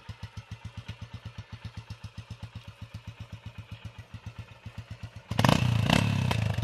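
Motorcycle engine idling with an even beat of about nine pulses a second, then a sudden, much louder rush of engine noise about five seconds in as the throttle is opened.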